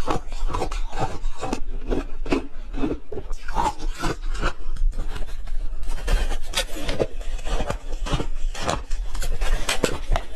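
A person chewing and crunching ice close to the microphone: a dense run of crackling crunches, several a second.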